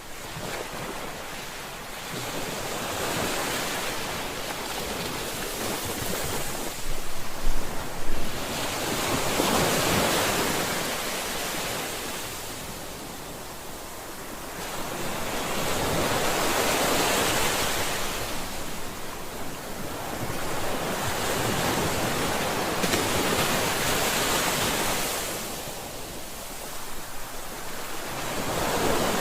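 Ocean surf: waves rushing in and washing back, the noise swelling and ebbing about every six to seven seconds.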